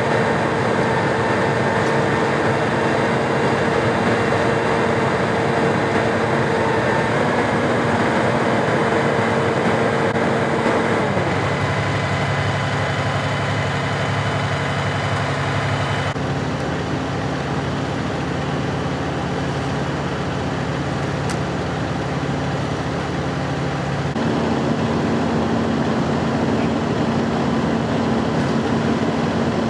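Idling vehicle engines: a steady hum with a held low tone. The tone shifts abruptly about 11 and again about 24 seconds in.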